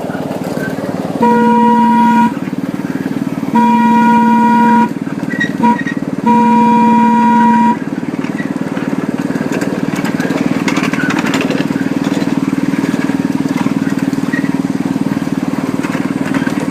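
Locomotive horn sounding the long, long, short, long pattern of a grade crossing signal, over the steady running of the locomotive's engine.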